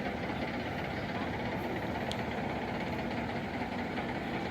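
Fire truck engine idling steadily at a fire scene, a constant low diesel drone.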